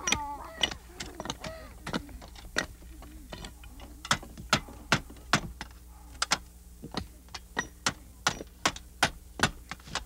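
A series of sharp, dry wooden knocks, irregular at about two or three a second, as a blade chops into a birch branch, over a steady low hum.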